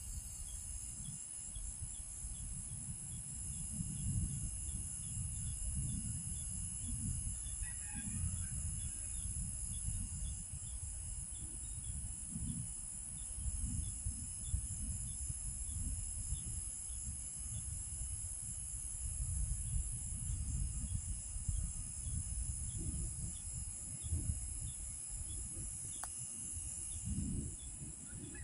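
Wind gusting over the microphone as an uneven low rumble, with a steady high-pitched chorus of insects and a faint animal call about eight seconds in.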